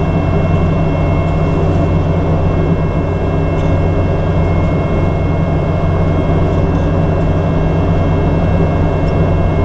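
Compact excavator's diesel engine running steadily under a low drone, with a faint steady high whine over it.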